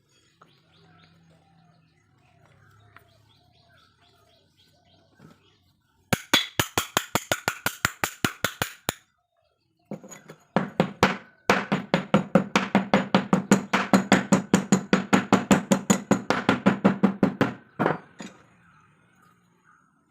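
Rapid, sharp metallic clicking or tapping at about seven strikes a second, in two runs: a shorter one of about three seconds and a longer one of about six. Faint bird chirps come before it.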